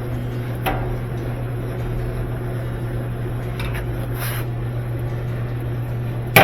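Hand work on a washing machine's lid-switch area: a few faint clicks and knocks of parts and tools being handled over a steady low hum, with a sharp knock at the very end.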